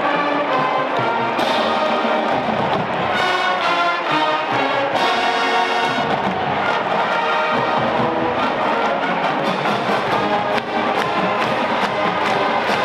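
Marching band playing, with brass holding chords over drums. Sharp drum strikes come through the second half.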